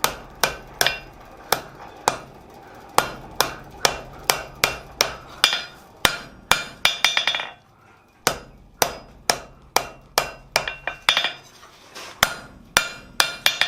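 Hand hammer striking hot steel on an anvil, a steady run of blows about two to three a second with a short pause a little past halfway, some blows leaving a metallic ring. The blows are bending the end of a tong blank into a short, tight crook.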